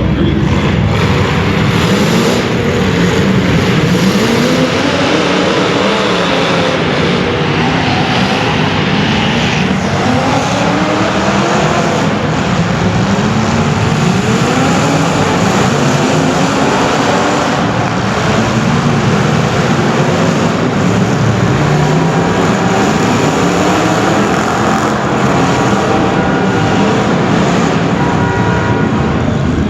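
Several racing engines running at full throttle as cars lap a short track. Their pitch rises and falls over and over, about every two seconds, as they speed up and slow down around the laps.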